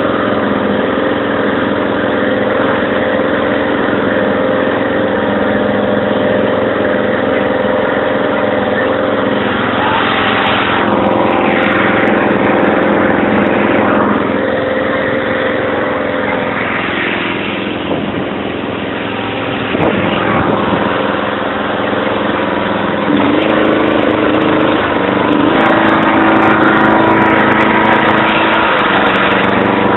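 Murray riding lawn mower's engine running steadily while towing a loaded kids' ride-on truck. Its note steps up a little about three-quarters of the way through.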